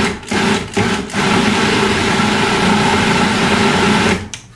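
Electric food processor running, its blade chopping horseradish root and water into a coarse paste. The motor cuts out briefly three times in the first second or so, then runs steadily and stops about four seconds in.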